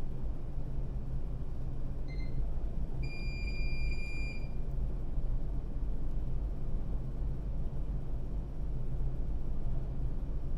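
ASD tug's diesel engines running steadily under load as the tug pushes on a tight line, a low even rumble. A short electronic beep sounds about two seconds in, then a longer one from about three to four and a half seconds.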